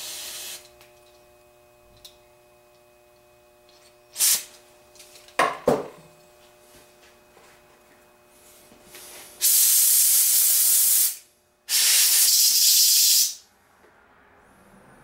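Aerosol brake parts cleaner spraying briefly at the start, then a short hiss and a few clicks, then two long blasts of compressed air from a pistol-grip air blow gun, each about a second and a half, blowing out a carburetor jet.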